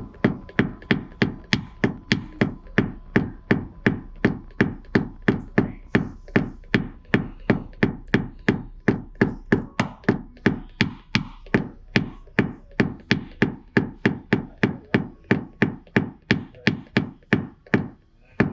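Paintless dent repair tool tapping on a car body panel: an even run of sharp knocks, about two and a half a second, which is typical of tapping down high spots.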